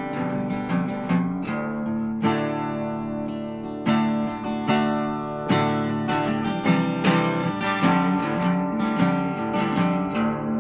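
Instrumental music of plucked and strummed acoustic guitar, without singing.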